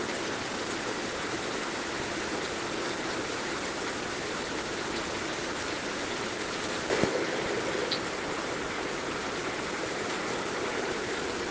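Heavy rain falling, a dense, steady hiss, with one louder drop or tap about seven seconds in.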